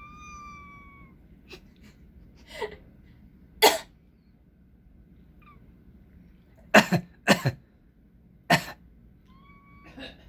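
A person coughs about five times in sharp, loud bursts, two of them close together, and a black cat answers with thin, high squeaks in place of meows: one held for about a second at the start, slightly falling, a faint one in the middle and a short one near the end.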